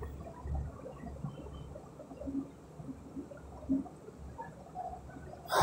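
Faint, irregular bubbling and gurgling of spiced water boiling in a metal pot as rice goes in, with a brief louder rustle at the very end.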